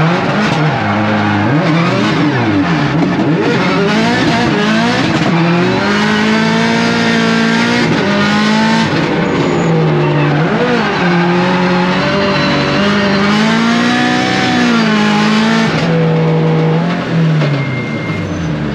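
Subaru race car's turbocharged flat-four engine revving hard from inside the cabin, its pitch swinging up and down again and again and held high for stretches while the tyres spin and squeal in drifts and donuts, easing off near the end.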